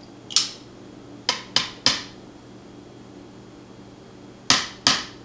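Sharp metallic clicks and taps from a lock being taken apart by hand, with its parts and tools knocking together: four in quick succession, then two more near the end, each with a short ring.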